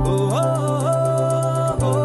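Background music with a held low drone, a melody that slides between notes, and a fast, even ticking beat.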